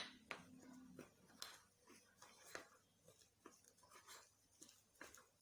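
Faint strokes of a spoon in a bowl, about two a second: mixing cornstarch into lettuce and melon pulp for a face mask.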